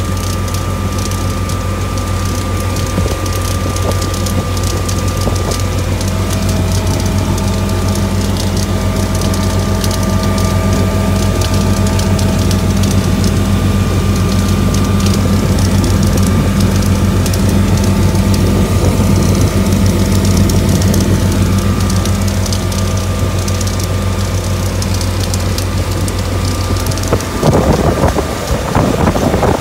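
Motorboat engine running steadily under way at about 3,000 rpm, a low drone with a faint whine above it. Near the end the drone drops away and rushing wind and churning wake water take over.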